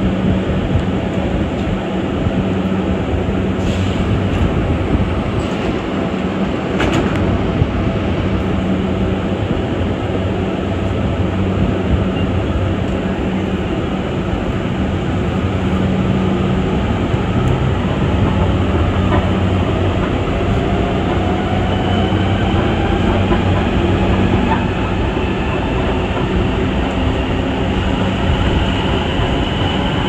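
Rubber-tyred Mexico City Metro train running between stations, a steady rolling rumble with a low hum, heard from inside the car. In the last third a motor whine rises steadily in pitch as the train picks up speed.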